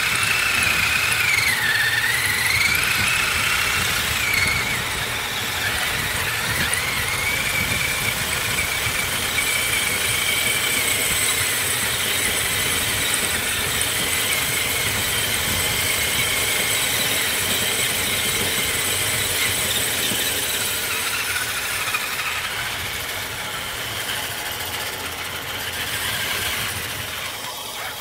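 Electric motor and gears of a radio-controlled scale rock crawler whining as it drives, heard from on board the truck. The whine wavers up and down in pitch over the first few seconds, then holds steadier.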